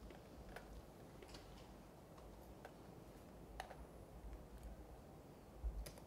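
A handful of faint, irregular clicks from a computer being operated, keys and mouse, over a low background rumble in an otherwise near-silent room.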